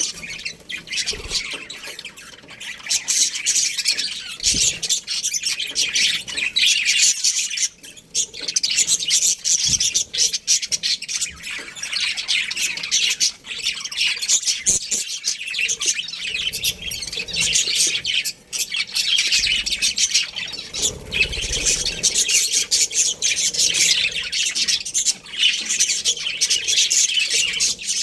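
Budgerigars chattering and squawking without pause, a dense stream of high chirps that drops away briefly about 8 and 18 seconds in.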